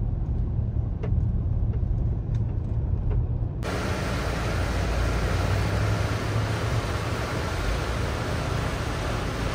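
Low rumble of a car's engine and road noise heard inside the cabin. About three and a half seconds in, it cuts suddenly to the steady rush of a flooding river's whitewater rapids.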